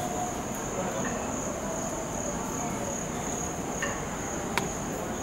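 Crickets trilling in a steady, unbroken high chorus, with a couple of sharp clicks near the end.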